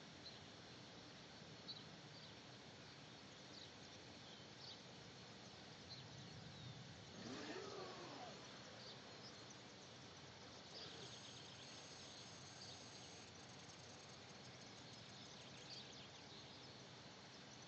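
Near silence: faint outdoor ambience with scattered high bird chirps. About seven seconds in, a faint whine rises and falls as something passes.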